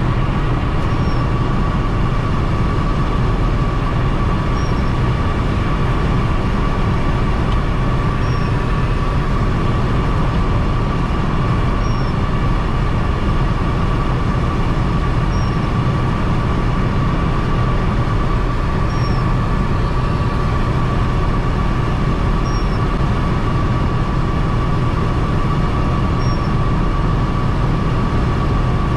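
Cabin sound of a 1991 VW Caddy Mk1 1.6 turbodiesel cruising steadily at about 130 km/h on a wet road: even engine drone with tyre and road hiss and a steady high whine. A faint short chirp repeats about every three and a half seconds.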